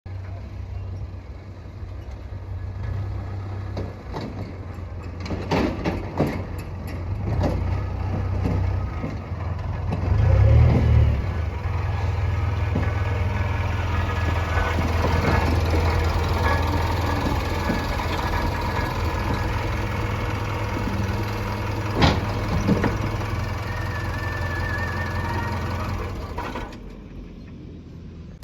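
JCB 3DX backhoe loader's diesel engine running steadily as it works, swelling loudest about ten seconds in, with a few sharp knocks along the way.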